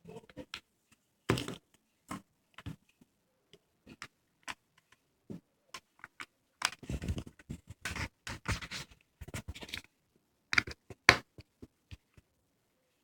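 Handling noise from a small device held in the hands: irregular clicks, taps and scrapes, with a dense stretch of scraping in the middle and two sharp knocks near the end.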